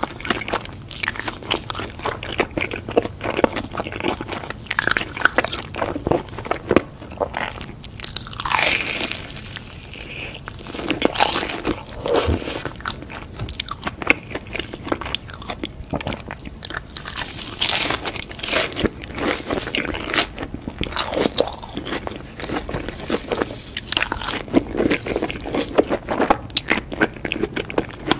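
Close-miked crunchy bites and chewing of crumb-coated fried rolls dipped in a creamy white sauce. The crackling crunches come in quick runs throughout, with wetter chewing between them.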